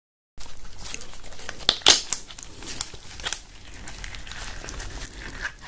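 Cooked king crab shell crackling and snapping as it is pulled apart by hand: a run of sharp cracks, the loudest about two seconds in.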